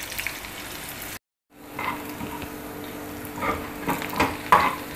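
Sliced onions frying in oil in an aluminium pan, sizzling, with a spatula scraping and stirring them as they start to brown. The sound cuts out completely for a moment a little over a second in.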